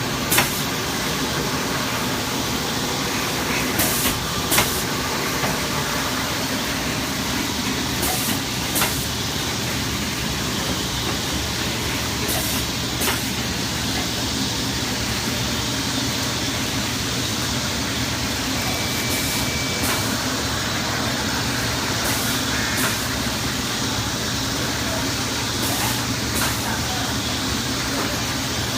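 Automatic shrink-wrapping machine running with a steady hiss and hum, and a pair of sharp clacks about half a second apart repeating every four seconds or so.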